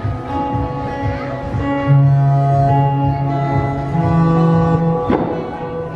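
Music of long held notes, with a strong low note sustained through the middle and a quick falling sweep near the end.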